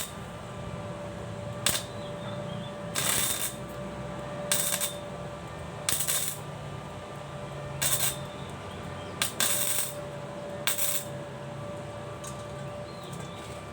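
Electric arc welding in short bursts: about eight brief crackling arcs, each under a second, roughly every one and a half seconds, as the iron pieces are joined. A steady hum runs underneath.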